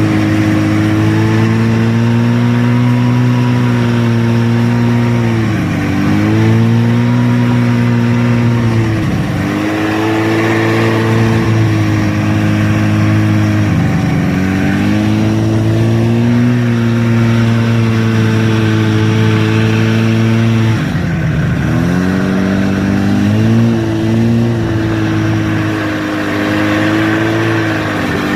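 Buran snowmobile's two-stroke twin engine running under way at steady revs, its pitch dipping and climbing back about five times as the throttle is eased and reopened.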